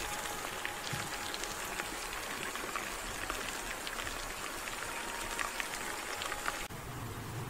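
Freshly roasted chicken and potatoes sizzling in a hot foil-lined roasting tray: a steady hiss with scattered light crackles, which drops suddenly near the end.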